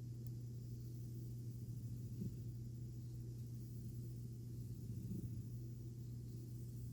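Domestic cat (American Ringtail) purring, a low steady rumble with a slight swell every few seconds as it breathes, while having its belly rubbed.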